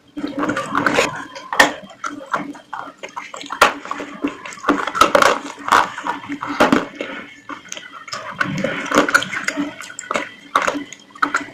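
Close-miked eating sounds: irregular wet chewing, smacking and slurping mouth noises, with many small clicks.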